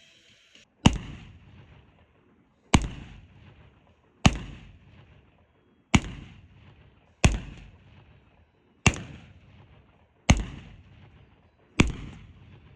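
Gunshots: eight single shots fired at an even pace, about one every second and a half, each followed by a tail that dies away over about a second.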